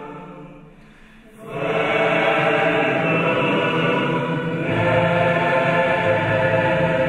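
Large mixed choir singing with a string orchestra. The music dies away briefly, then choir and orchestra come back in loudly about a second and a half in, holding sustained chords, with a low bass line joining near the end.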